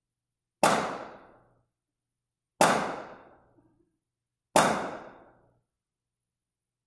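Three loud bangs about two seconds apart, each echoing for about a second in the church. This is the strepitus of a Tenebrae service, the loud noise that marks Christ's death and the earthquake.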